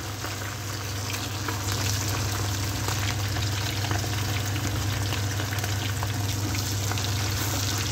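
Chicken lollipops deep-frying in hot oil in a kadai: a steady sizzle with fine crackling. A low steady hum runs underneath.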